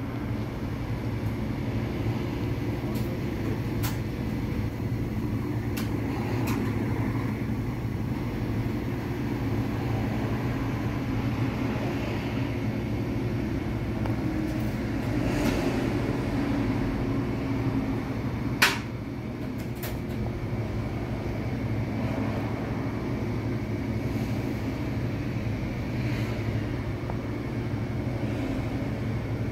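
Steady low machine hum, with a few faint clicks and one sharp click a little past the middle.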